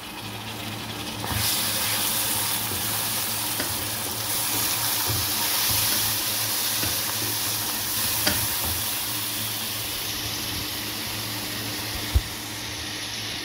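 Sliced onions and chopped tomatoes sizzling in hot oil in a kadai while being stirred with a spatula; the sizzle turns louder about a second in and runs steadily after that. A few light knocks come through, with one sharp knock near the end.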